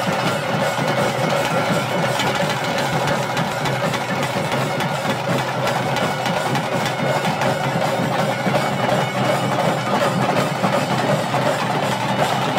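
Traditional ritual music: dense, steady drumming with a reed wind instrument sounding held notes over it.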